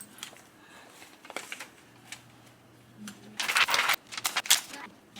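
Plastic laminating pouches and paper being handled: clicks and crinkly rustling, with two louder bursts of rustling about three and a half and four and a half seconds in.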